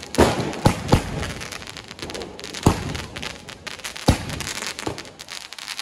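Diwali firecrackers going off: about five loud, sharp bangs at irregular intervals, three of them within the first second, over a constant crackle of smaller pops.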